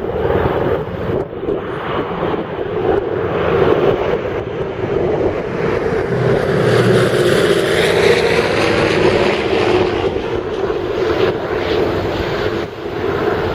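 A heavy lorry with a long trailer drives past close by, its noise swelling and fading about halfway through, over the steady drone of the Douglas DC-6B's radial piston engines on approach.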